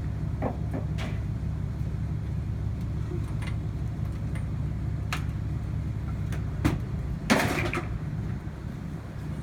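A steady low engine-like rumble, with scattered clicks and knocks and a short, louder clatter about seven seconds in.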